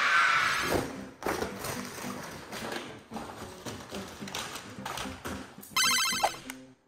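A ringtone-like electronic tune, with a bright ringing tone about six seconds in.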